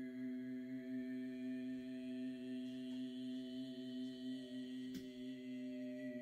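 Soft ambient background music: a steady drone of several sustained, slightly wavering tones with faint higher tones slowly gliding above them. A faint click comes about five seconds in.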